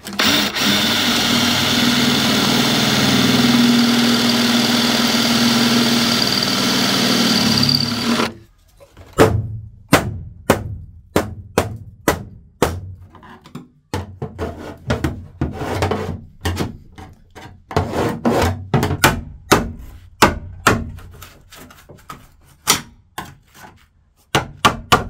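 Cordless drill with a 13 mm bit running into a spot weld in the rusty steel seam of a Jeep XJ cargo floor for about eight seconds, then a long irregular run of sharp taps as a screwdriver is driven into the seam to split the spot-welded panels apart.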